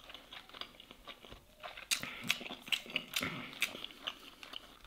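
A person chewing a mouthful of rice and grilled fish, with wet lip smacks and mouth clicks. The smacks are sparse at first and come thicker from about two seconds in.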